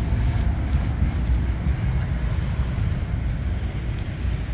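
Steady low rumbling street background noise, with a couple of faint clicks.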